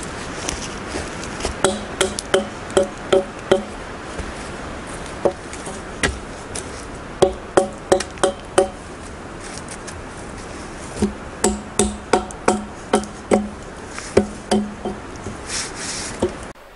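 Axe blade striking a log again and again in quick runs of chops, each a sharp knock with a short ringing wood tone, as the bark is peeled off the log. Steady wind noise lies underneath.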